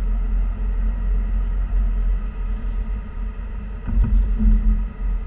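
Low, steady road rumble of a car heard from inside the cabin while driving, with a brief louder thump about four seconds in.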